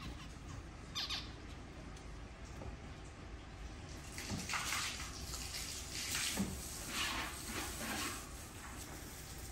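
Small birds in an aviary making short, scattered sounds over a steady background hiss, one about a second in and a cluster between about four and eight seconds in.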